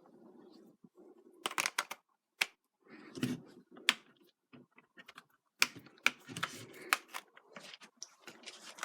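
Irregular clicks, taps and scrapes of a small screwdriver being worked at the battery-cover screw of a plastic toy sword, with plastic handling knocks; the screwdriver may be the wrong size for the screw.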